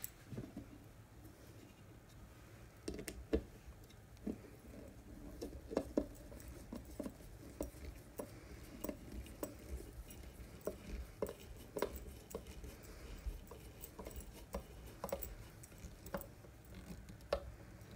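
A hand screwdriver driving a screw into a wooden box lid: irregular small clicks, creaks and scrapes as the screw is turned, with a few louder ticks.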